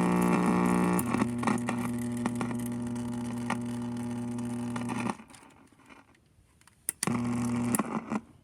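A vintage alarm clock radio's speaker gives a steady electronic buzz, with clicks from a loose piece bouncing on the speaker cone. The buzz shifts pitch about a second in, cuts out about five seconds in, and comes back briefly near the end.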